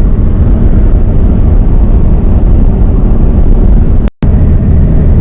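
Loud, steady driving noise of a diesel RV on the road: engine, tyre and wind rumble heard from inside the cab. It cuts out for a moment about four seconds in.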